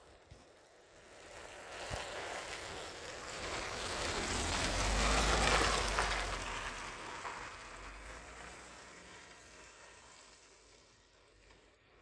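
A vehicle passing by: a rushing noise with a low rumble swells over about five seconds, peaks near the middle, then fades away.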